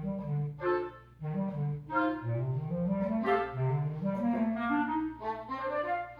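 Woodwind quintet playing live, clarinet prominent: short detached chords at first, then a rising line in the low instruments under held notes in the upper voices.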